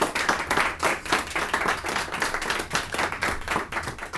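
A small group of people applauding: many quick, overlapping hand claps.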